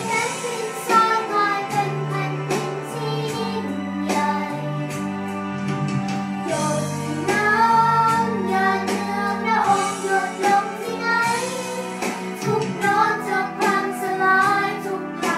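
A song playing: a sung melody over a backing track with a bass line and a steady beat.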